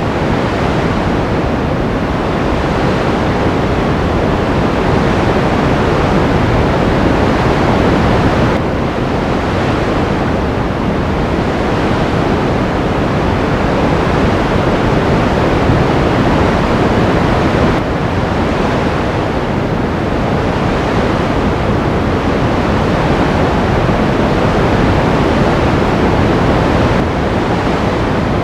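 Steady, even rushing noise with no music or voices, changing abruptly in tone about every nine seconds as a looped track restarts.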